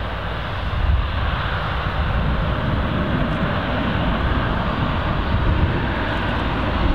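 Boeing 777-200ER's twin jet engines running at low taxi power as the airliner rolls along the taxiway: a steady rushing jet noise over a low rumble.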